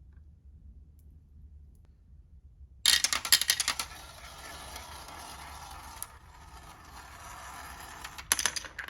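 Marbles clattering and rolling down a wooden marble run. After about three quiet seconds a burst of rapid clacks starts suddenly, settles into a steady rolling rattle, and sharp clacks return near the end.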